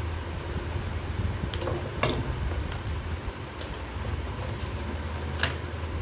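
Steady low background hum, with a few short clicks of wires and a screwdriver being worked into the terminals of contactors on a control panel. The clicks come once, then again about two seconds in, and once more, the sharpest, near the end.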